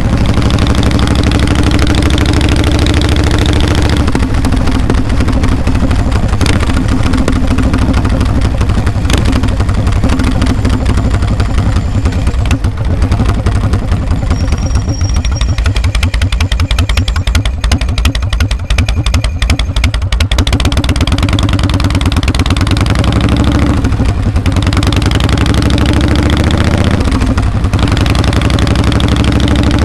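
Harley-Davidson V-twin engine running through its muffler while riding: a steady loud exhaust beat, easing off to a slower pulsing beat about midway, then rising in pitch as it accelerates again in the last several seconds.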